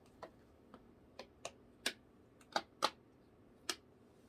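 Simple dimple fidget toy clicking as its bubbles are pushed in, about nine sharp clicks at an uneven pace.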